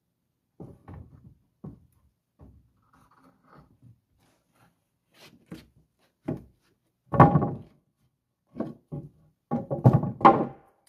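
Wooden deck boards knocking and thudding against the deck frame as they are pried loose and lifted out. There are light knocks at first, a loud clatter about seven seconds in, and a quick run of heavier thuds near the end.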